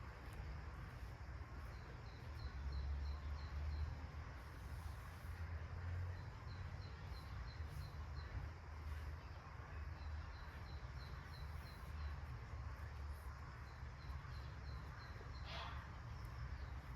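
Outdoor ambience: a small bird repeats a short, high chirp in runs of several notes, about three or four a second, over a low steady rumble. Near the end a single call sweeps downward in pitch.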